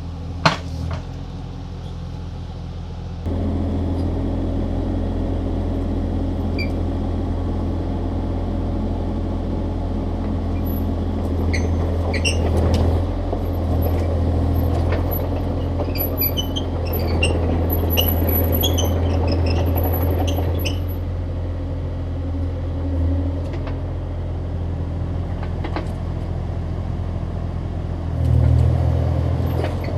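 Excavator's diesel engine running steadily, stepping up in speed about three seconds in, with scattered high squeaks while the machine works between about eleven and twenty-one seconds. A sharp click just after the start.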